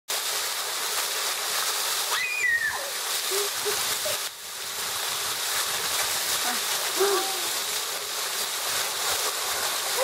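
Small waterfall pouring onto a person standing beneath it and splashing into the pool below, a steady rush of falling water. A woman gives a few short cries under the cold stream, around two seconds in, again shortly after, and near seven seconds.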